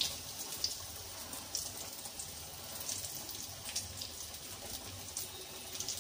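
Potato bonda deep-frying in hot oil in a kadai: a steady sizzle with scattered small crackles and pops.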